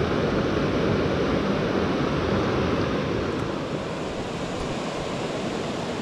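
Fast, turbulent mountain river rushing over stones and rapids: a steady roar of running water, dropping a little in level about three seconds in.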